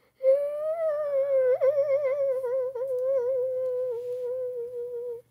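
A person humming one long, wavering note for about five seconds, its pitch drifting slowly down toward the end.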